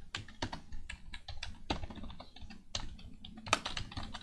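Typing on a computer keyboard: an uneven run of key clicks, with one louder keystroke about three and a half seconds in.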